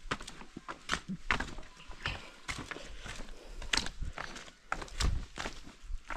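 Footsteps of several hikers crunching along a dry dirt trail strewn with dead leaves and small stones, at a walking pace of about two to three steps a second.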